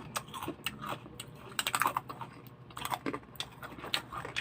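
Crunching of crispy chicharon being chewed, a quick irregular run of sharp crackling clicks.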